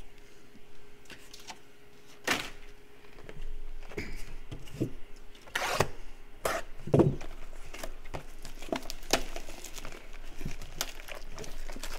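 Handling a cardboard trading-card box and tearing at its plastic shrink-wrap: crinkling with scattered sharp taps and knocks, the loudest about seven seconds in.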